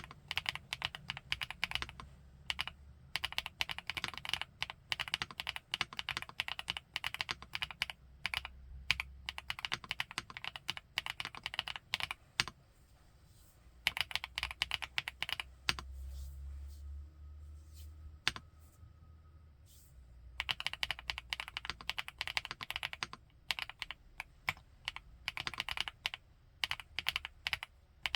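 FL-ESPORTS Geo75 mechanical keyboard with Kailh x Funkeys BCP switches being typed on in fast runs of keystrokes. About halfway through, the typing thins to a few scattered single keystrokes for several seconds, then fast typing resumes.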